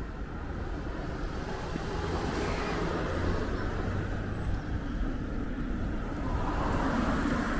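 Cars passing on a town street: tyre and engine noise rising and falling, the loudest pass near the end as a car goes by close.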